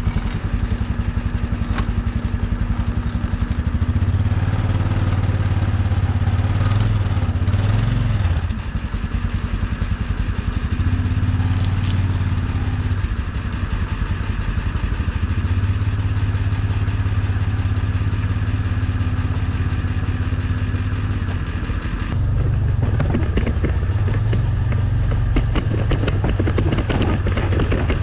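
A motor vehicle's engine running steadily with a low hum that swells and eases, along with some clatter. The sound changes abruptly about three-quarters of the way through.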